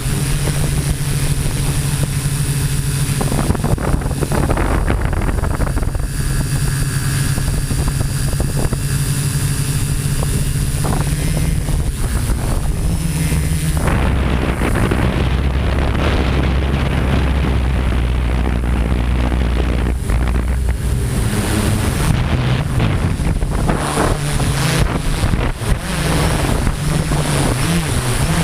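Homemade multirotor drone's electric motors and propellers buzzing steadily in flight, their pitch shifting several times as the motors adjust, with wind buffeting the microphone.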